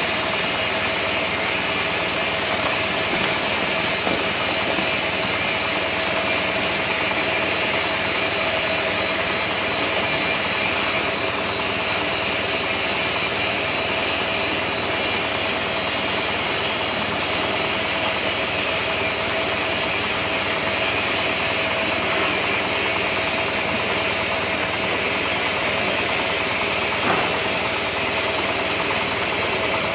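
CKPE-1200 bubble film making machine running steadily: a constant mechanical drone with a steady high whine and a lower hum.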